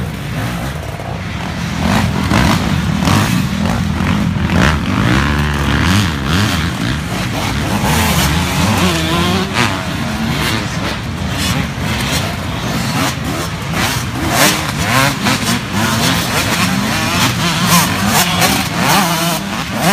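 Several off-road dirt bike engines revving as riders pass, rising and falling in pitch as they accelerate and shift, with engines overlapping.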